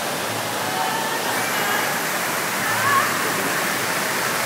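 Steady rush of circulating water in an indoor waterpark lazy river, with faint voices mixed in.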